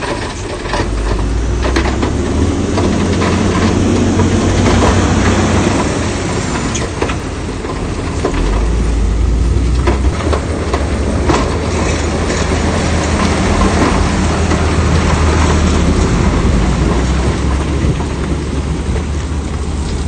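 Heavy diesel earthmoving machinery working: a large engine running under load, with repeated metallic clanks and knocks of tracks and rock. The engine grows louder about eight seconds in.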